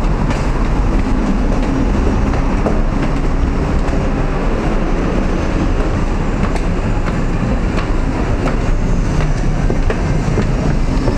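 Steady loud rumbling noise, with a few faint footsteps on the stone stairs now and then.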